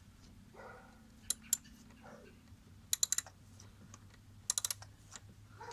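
Hand socket wrench ratcheting on a bolt: two single clicks, then two short bursts of about five quick clicks each as the wrench is swung back and forth, tightening the idle air control valve's mounting bolt.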